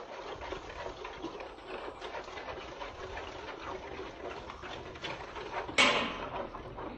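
White nylon cast net rustling and swishing as it is gathered by hand and fed into a plastic basin of tung oil and petrol to be oiled. A louder, brief swish comes about six seconds in as the bulk of the net drops into the basin.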